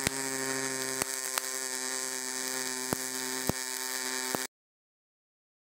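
MIG welding arc buzzing steadily, with a handful of sharp pops scattered through it; it cuts off suddenly about four and a half seconds in.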